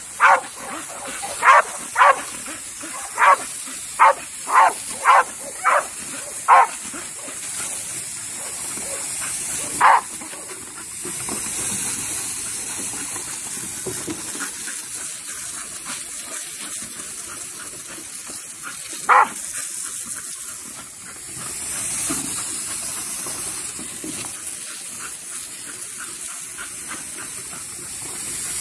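Dog barking over the steady hiss of a garden hose spraying water onto a wooden deck. There is a quick run of about nine sharp barks over the first seven seconds, then one single bark about ten seconds in and another near nineteen seconds.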